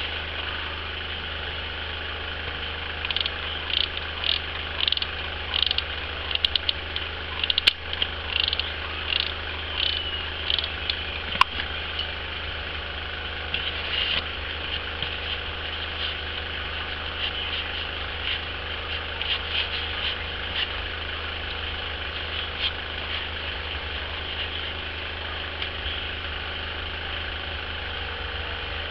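Short squeaky, crinkly rubbing sounds of EVA foam sheet being pressed and stretched by hand over a styrofoam ball, coming in quick clusters for most of the first two-thirds, with a couple of sharp clicks. A steady low hum runs underneath.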